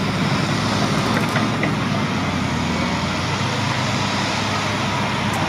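Wheeled excavator's diesel engine running steadily while it digs and lifts sand.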